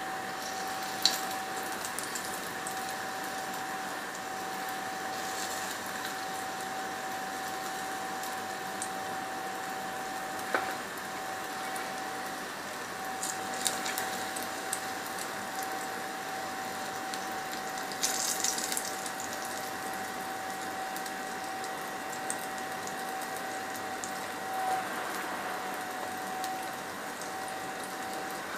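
Butter and pancake batter sizzling in a frying pan: a steady hiss under a constant faint whine, with a few light clicks of utensils against the pan.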